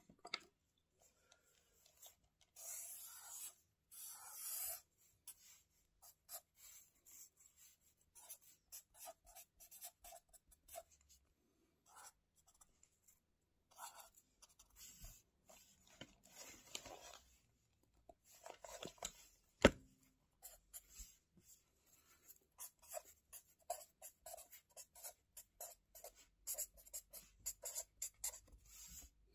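A pen writing and drawing on a lined page of a spiral-bound notebook, close to the microphone: many short scratching strokes in quick runs. A couple of longer rustling swishes come a few seconds in, and a single sharp tap about two-thirds of the way through is the loudest sound.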